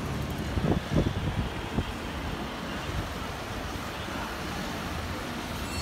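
Strong storm wind blowing: a steady rushing noise with a low rumble, and a few short buffets about a second in.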